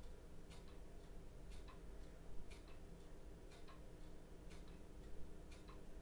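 Clock ticking steadily about once a second, each tick a sharp click followed closely by a weaker second click, over faint quiet room tone with a low steady hum.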